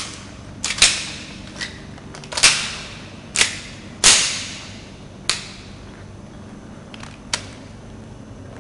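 Airsoft pistol firing a string of about eight sharp shots, spaced irregularly around a second apart, each with a short echoing tail.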